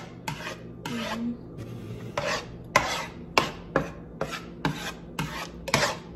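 Spatula scraping across the bottom of a nonstick frying pan, stirring minced garlic in olive oil, in quick repeated strokes about two a second.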